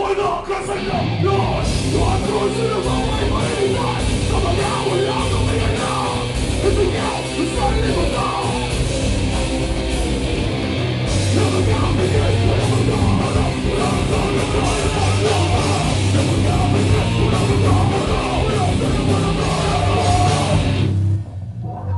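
Hardcore/metal band playing live: distorted guitar, bass and drums with a vocalist, loud and dense, stopping suddenly near the end.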